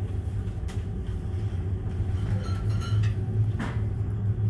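Steady low drone of a passenger ferry's engines and onboard machinery, heard from inside a lounge.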